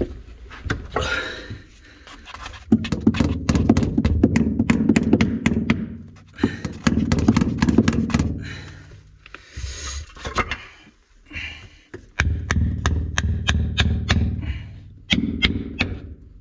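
Knocks, taps and scraping as hands work at a plastic waste pipe and drain fitting, with many sharp clicks and two long stretches of dense rumbling handling noise.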